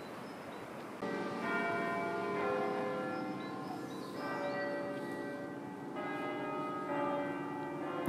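York Minster's church bells ringing for two o'clock: several bells of different pitch struck in turn from about a second in, each tone ringing on and overlapping the next.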